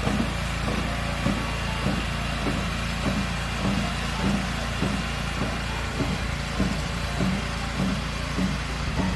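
Engine of cranberry harvesting machinery running steadily: a low hum with a regular beat about twice a second.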